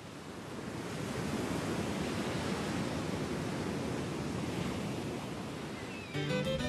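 Ocean surf washing in a steady rush, fading up out of silence at the start. Music begins over it near the end.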